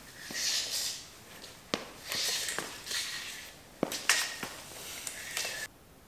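Handling noises: hissing pulls of a tape measure blade and a rubber threshold strip scraping on a concrete floor, with several sharp clicks in between. The sound cuts off suddenly near the end.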